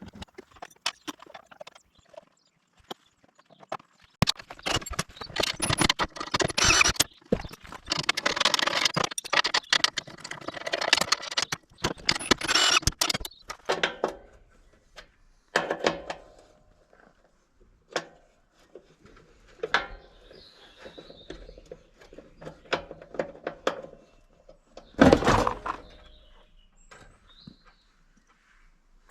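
Irregular clicks, knocks and rustling or scraping, like objects being handled and moved about, with one louder burst of noise about 25 seconds in.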